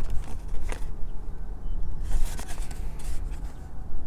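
Fingers rubbing and scuffing on a cardboard airsoft-pistol box as it is handled. There are short scrapes and taps about a second in, and a run of them between two and three seconds in, over a steady low rumble.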